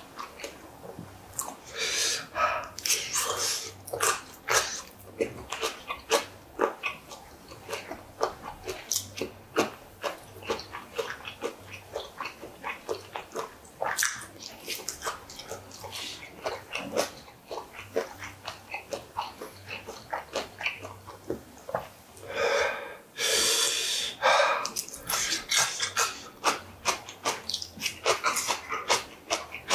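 Close-miked eating sounds: dense, irregular wet chewing, smacking and small crunches as a man eats spicy chicken feet and grilled shishamo, with a longer breath or sniff about three quarters of the way through.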